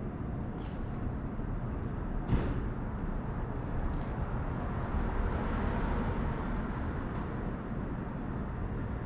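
Steady low rumbling outdoor background noise, with one sharp click a little over two seconds in and a few faint ticks.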